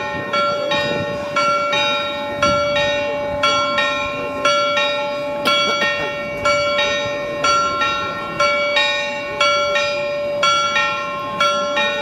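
Frauenkirche church bells pealing for noon: several bells struck in overlapping succession, about two strokes a second, over a steady hum from the ringing bells.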